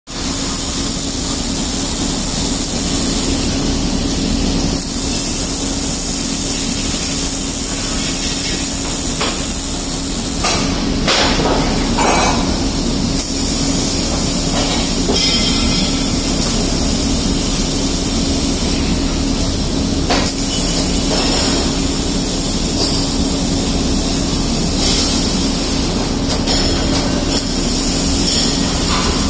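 Robotic MIG welding: the welding arc hisses and crackles steadily, over a steady low hum. A few sharper clicks cut in about a third of the way through and again about two-thirds through.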